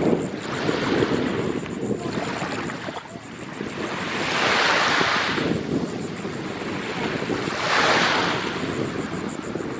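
Small bay waves washing onto the shore in three swells about three seconds apart, with wind buffeting the microphone as a low rumble underneath.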